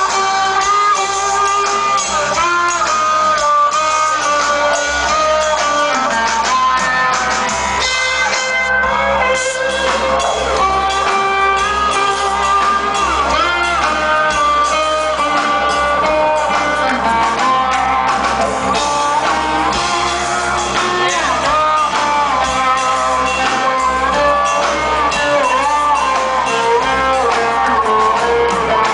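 Live didgeridoo jam played loud through a concert PA, with pitch-sliding melodic lines above a steady low drone.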